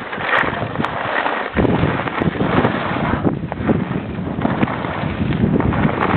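Wind rushing over a camera microphone, a loud, uneven, gusting noise.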